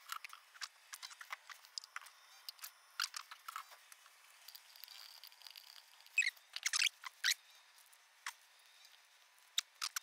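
Faint, scattered clicks and taps of parts being handled out of shot, with a brief cluster of slightly louder clicks and short hisses about six to seven seconds in.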